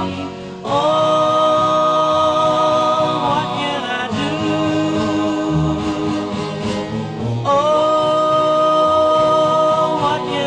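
1958 doo-wop record: a vocal harmony group sings long held chords. A high held chord gives way to a lower one about four seconds in, then the high chord returns about seven and a half seconds in, each sliding off at its end, over the backing band.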